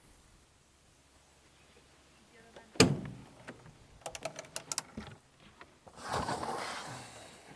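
Handling noise: a single sharp knock about three seconds in, then a quick run of light clicks and a scraping rustle near the end.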